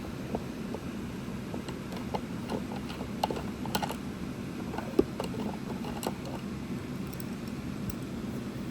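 Irregular small clicks, ticks and taps from hands and tools working on a speaker cabinet being taken apart, with one sharper tap about five seconds in, over a steady low background hum.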